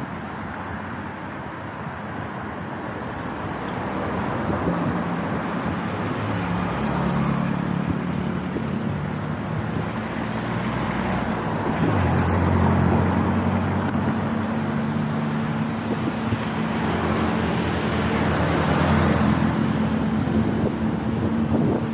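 Road traffic close by: motor vehicle engines running and passing over a steady roadway hiss, the engine hum growing louder partway through and again near the end.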